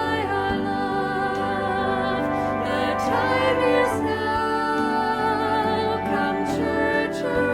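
Church music: a singing voice with vibrato over sustained instrumental accompaniment, played as the offertory.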